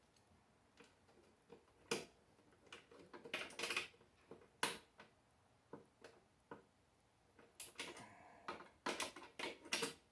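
Irregular sharp metallic clicks and clinks of a hand tool working as nuts are tightened, with short runs of quick clicks about three and a half seconds in and again near the end.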